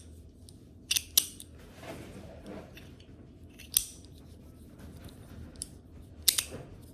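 Metal magnetic maze slider fidget being slid, its parts clicking together in a few sharp metallic clicks: a pair about a second in, one near the middle, and a quick cluster near the end.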